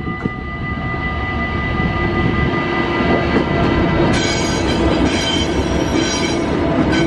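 Loaded freight train rolling past at a level crossing, its wagons rumbling over the rails, with a high wheel squeal setting in about four seconds in.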